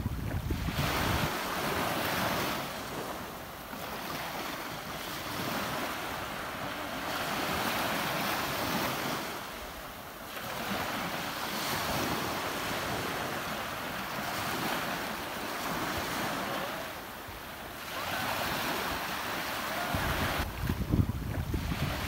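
Ocean waves breaking and washing up the shore, swelling and fading every few seconds. Wind buffets the microphone with a low rumble at the start and again near the end.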